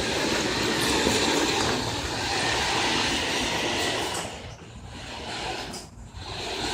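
Radio-controlled car driving, its motor and wheels running in a steady rush, easing off twice in the second half before picking up again.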